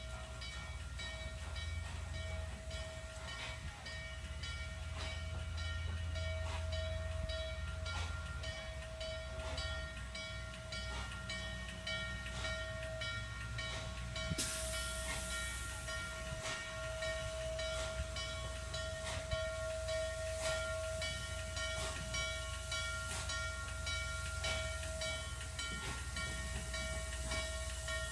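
Norfolk & Western steam locomotive standing under steam: a steady whine with a regular ticking beat over a low rumble. A high hiss of steam comes in suddenly about halfway through.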